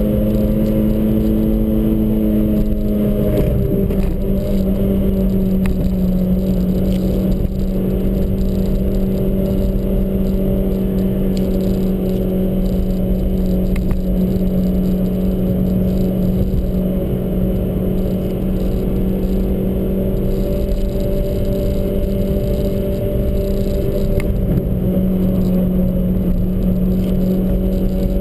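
Car engine running steadily under way, heard from on board, with road noise underneath. Its pitch eases down about three seconds in and then holds steady.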